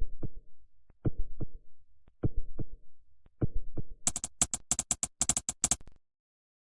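Electronic drum beat: a kick-and-snare pattern repeating four times, then a rapid burst of bright, crisp hits for about two seconds that stops abruptly.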